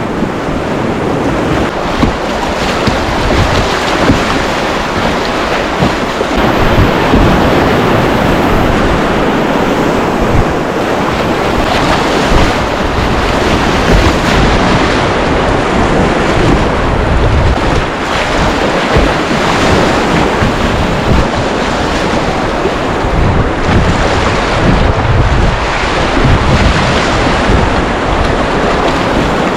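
Whitewater river rushing loudly and steadily, with wind noise on the microphone.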